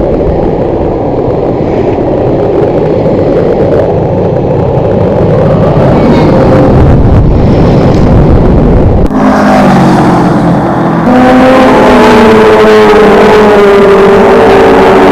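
Loud steady rushing of wind and road traffic during a bicycle ride. From about nine seconds in, several held, wavering tones sound over it.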